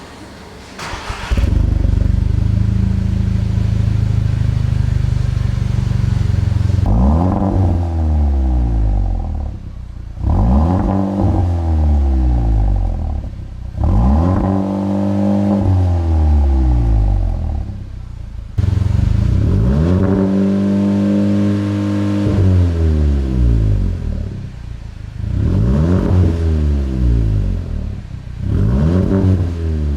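Audi S3 turbocharged four-cylinder exhaust: the engine starts about a second in and idles steadily, then is free-revved about six times, each rev rising and falling in pitch, with a longer rev near the middle.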